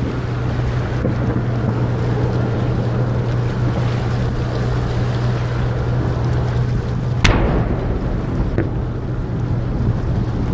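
Aerial firework shell bursting: one sharp boom about seven seconds in, then a fainter crack about a second and a half later, over a steady low hum and wind noise.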